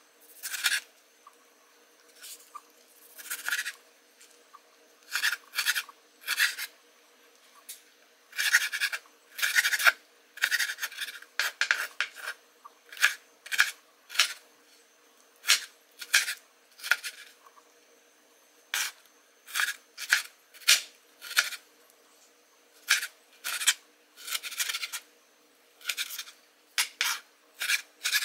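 Kitchen knife dicing a tomato on a cutting board: short, sharp cutting strokes, irregularly spaced and sometimes in quick runs of several a second, with brief pauses between.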